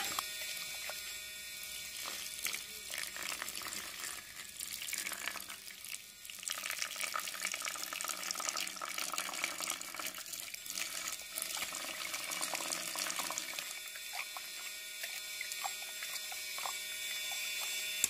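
Wet concrete slurry pouring and splashing from the hose of a small toy-scale pump into a mould, over the steady run of the pump.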